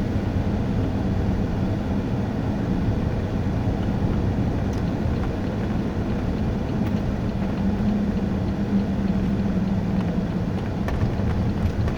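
Pontiac Grand Prix cruising on a snow- and slush-covered road: a steady low engine drone with a constant wash of road and tyre noise.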